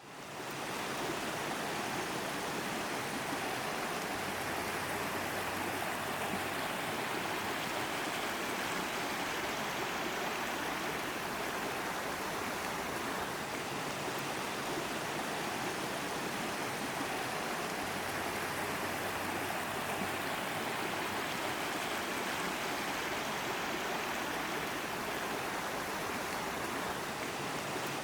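Creek water flowing and rushing steadily.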